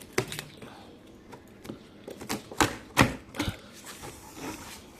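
Handling of a sealed cardboard package: a series of sharp, irregular taps and knocks, the loudest about three seconds in.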